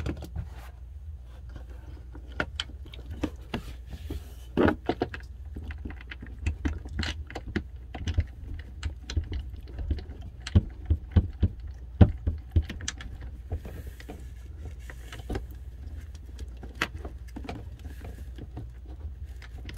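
Irregular small clicks and taps of plastic parts and a screw being handled and fitted into an RV toilet's flush-valve and pedal assembly, over a steady low hum.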